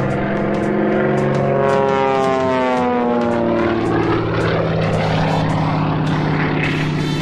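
A highly modified Waco UPF-7 biplane's 450 hp Pratt & Whitney R-985 nine-cylinder radial engine and propeller making a close, low pass. The engine note drops in pitch as the plane goes by, then settles to a steadier, lower drone.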